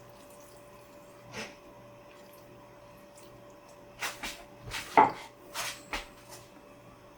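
Kitchen utensils knocking against cookware: one short clink about a second and a half in, then a quick run of sharper knocks and clatters a few seconds later.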